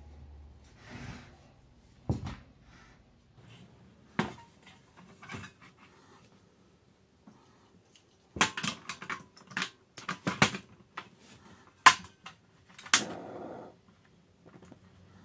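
Portable cassette gas stove being handled: a run of sharp clicks and knocks as its gas-canister compartment is worked and the cover shut, the loudest knock about twelve seconds in. A few single knocks come earlier.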